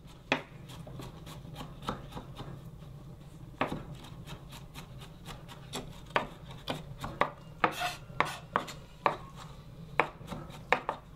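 Hand food preparation in a kitchen: irregular sharp clicks and knocks, roughly one or two a second, some louder than others, over a low steady hum.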